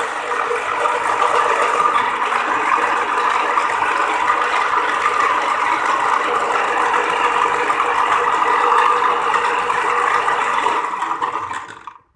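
Electric kitchen blender running steadily, whirring as it blends chopped herbs and leaves in hot water, then switched off and spinning down near the end.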